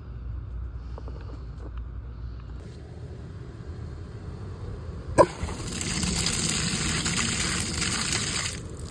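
New quarter-turn outdoor hose bib opened: a sharp click about five seconds in, then water gushing from the spout and splashing for about three seconds until it is shut off near the end.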